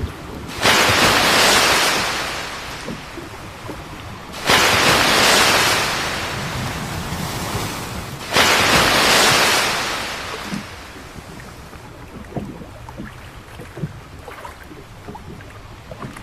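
Water splashing and spraying beside a boat three times, about four seconds apart, each rush starting suddenly and fading over two or three seconds, as a large squid thrashes at the surface. Quieter lapping water with a few small knocks follows.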